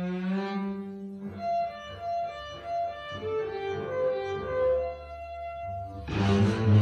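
Solo double bass playing contemporary music: a long held note, then a run of short, soft high notes, then a sudden loud, dense, noisy passage about six seconds in.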